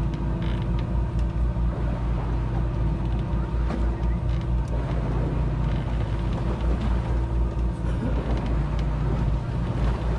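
A fishing boat's engine running with a steady low drone, with creaking from the boat's fittings over it.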